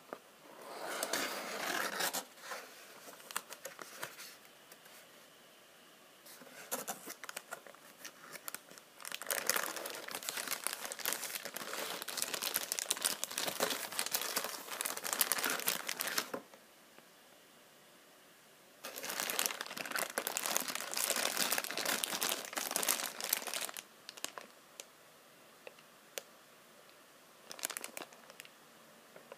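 Clear plastic bag crinkling as a wrapped figure is handled and pulled out of a cardboard box, with hands rubbing on the cardboard. It comes in several bursts with quiet pauses between, the longest lasting about seven seconds.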